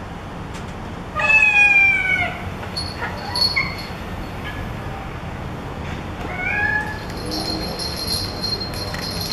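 Cat meows played through a phone's small speaker: one long meow falling in pitch about a second in, then several shorter meows around three seconds and again around six to seven seconds.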